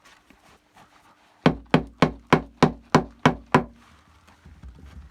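Eight sharp knocks in quick succession, about three a second, starting about a second and a half in, like something being struck during engine teardown, with faint light clatter near the end.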